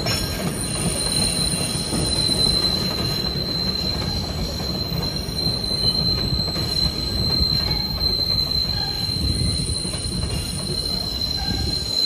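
SEPTA Kawasaki B-IV subway cars rolling past: a steady low rumble of wheels on rail with a thin, unbroken high-pitched wheel squeal over it.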